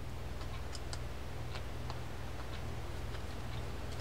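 Faint small metallic clicks, a few a second, as a screwdriver works a small case screw into a fishing reel's metal side plate, over a steady low hum.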